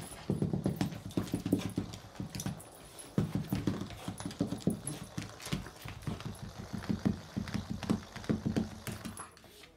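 A dog growling in long runs of rapid low pulses, with short pauses between spells, while playing with a toy, mixed with clicks from its claws on the hard floor.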